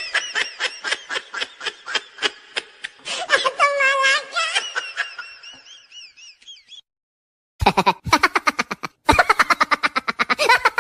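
Laughing sound effects played back to back: a high-pitched, rapid giggling laugh that fades out over about seven seconds, then after a brief silence a new burst of fast, hearty laughter.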